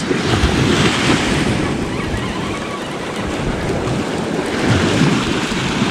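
Ocean surf washing up the beach in small breaking waves, with wind rumbling on the microphone.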